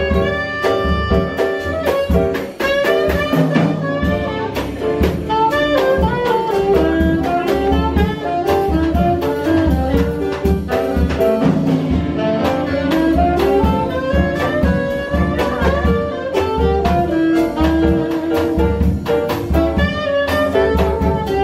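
Jazz band playing, with a saxophone carrying a busy melodic line of quick runs over drum kit and bass.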